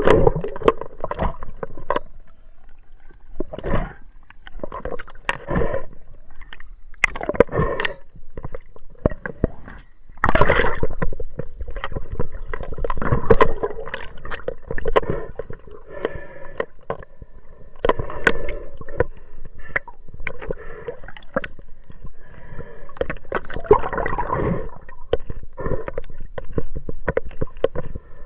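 Water splashing and sloshing at the side of a fishing boat, in irregular bursts.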